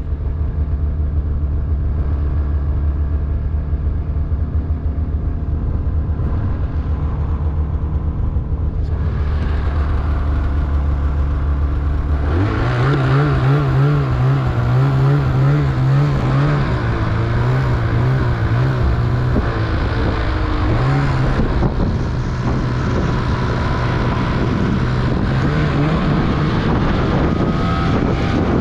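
850cc two-stroke mountain snowmobile engine running at a steady low speed. About twelve seconds in it is throttled up, and its revs then rise and fall.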